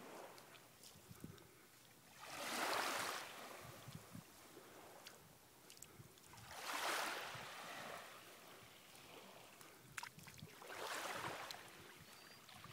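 Small waves washing in over a shallow sandy beach: three swells of rushing water about four seconds apart, with faint clicks between them.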